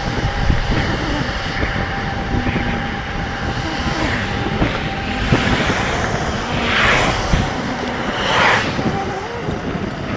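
Riding noise picked up by an action camera on a moving e-bike: wind rumble on the microphone and road noise, with a thin steady whine and two louder swooshes about seven and eight and a half seconds in.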